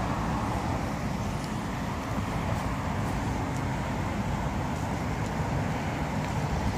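Steady road traffic noise: an even, low rumble of passing cars with no distinct events.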